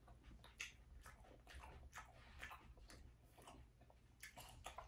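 Faint chewing of a mouthful of salad, with soft crunches and mouth clicks at irregular intervals.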